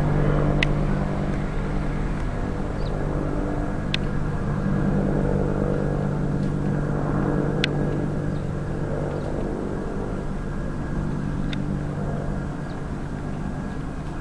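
Agusta-Bell AB 212 helicopter's twin turboshaft engines and two-blade main rotor droning steadily as it flies away, slowly growing fainter. A few faint sharp ticks are heard over it.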